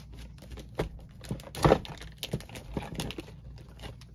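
Handling noise from a sealed cardboard box of trading-card packs: a run of light taps, clicks and rustles, with one louder knock about a second and a half in.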